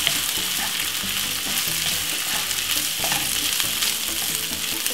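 Rice and chopped vegetables sizzling in oil in a non-stick frying pan, stirred with a wooden spoon: a steady frying hiss with light scraping and knocks from the spoon.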